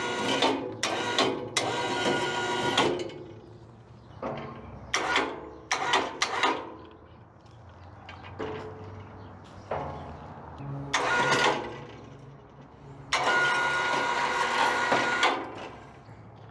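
Electric wire-rope hoist riding on the homemade elevator car, its motor whining in about nine short start-and-stop runs as it lowers the car down the shelter shaft on its cable. The longest runs, of two to three seconds, come at the start and near the end.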